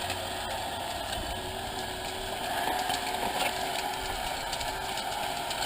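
Electric drive motors of a remote-controlled Mead Mighty Mouse dozer, converted from gas to electric, running steadily with a held tone, with scattered clicks and crackles.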